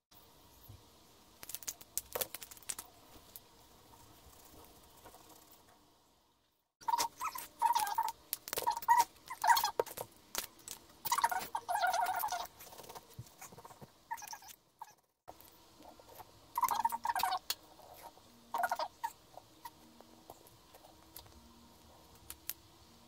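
Paint marker tip scratching and squeaking against a smooth stone in short strokes, with light handling noise; the sound drops out completely twice, briefly.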